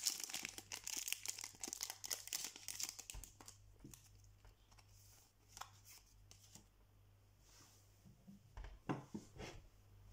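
Foil wrapper of a Pokémon trading-card booster pack being torn open and crinkled in the hands for the first few seconds. It then fades to light rustling and handling, with a few sharp taps near the end as the cards and pack are set down on the table.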